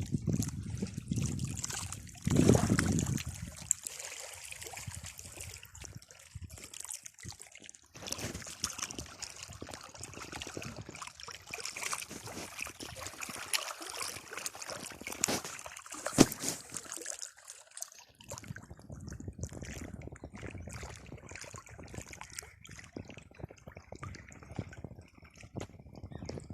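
Water trickling and splashing unevenly, with a louder low surge about two and a half seconds in and a sharp click about sixteen seconds in.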